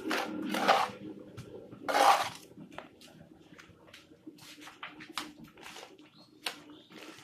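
A trowel scooping wet cement mortar off a board and flinging it onto a concrete block wall. Two louder wet scrapes and slaps in the first two seconds, then a run of short, sharp trowel taps and scrapes.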